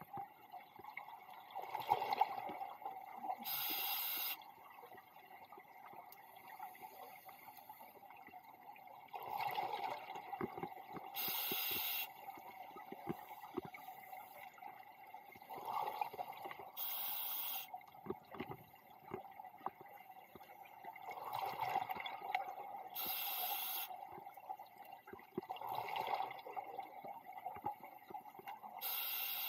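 Scuba diver breathing through a regulator underwater: a short, even hiss on each inhale and a burst of bubbling on each exhale, repeating about every six seconds, five breaths in all.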